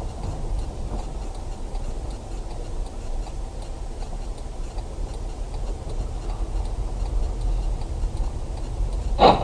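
A car driving, with a steady low engine and road rumble and a faint, regular light ticking. Near the end comes one short, loud thump.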